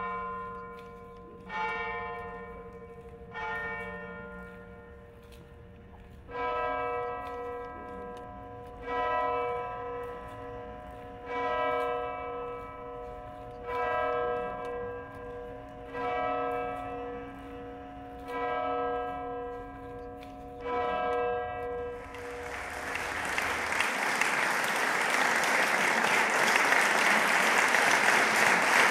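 Tower clock bell striking: three strokes, then seven fuller, deeper strokes about two and a half seconds apart, each left to ring out. Near the end the bell gives way to audience applause that swells steadily.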